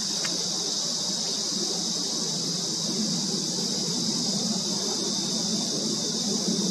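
A steady, high-pitched insect chorus that runs without a break, over a low steady hum.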